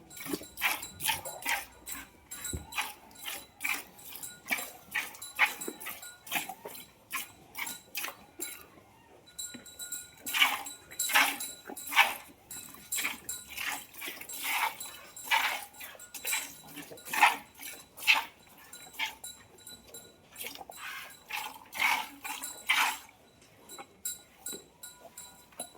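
A cow being milked by hand: short hissing squirts of milk into a pail in a steady rhythm, two or three a second at first, then louder and a little slower through the middle, with brief pauses.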